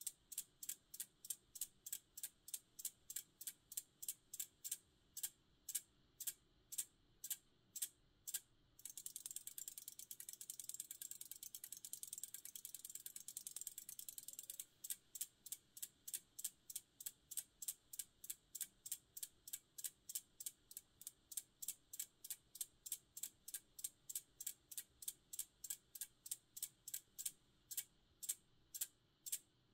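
Flip-disc display's small electromagnetic discs flipping over one after another, each flip a sharp click, about three a second. From about nine seconds in, for some six seconds, the discs flip so fast that the clicks run together into a continuous rattle, then the steady clicking resumes.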